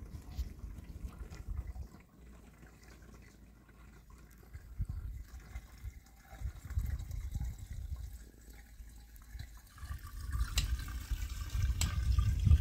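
Liquid pouring and gurgling from a plastic jerrycan through its spout into an animal-skin bag. The pouring gets louder over the last few seconds.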